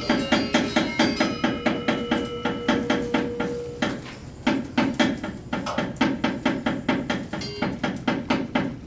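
Balinese wayang kulit percussion: rapid, steady knocking of about five strokes a second, the dalang's wooden cepala struck against the puppet box, with ringing tones over the first few seconds. The knocking softens briefly about four seconds in, then resumes as a new puppet enters the screen.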